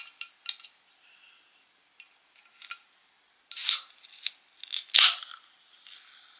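Aluminium drink can being opened by its ring-pull. A few light clicks of the tab come first. A little past halfway there is a short hiss of escaping gas, then a sharp crack with a fizz trailing off about a second later.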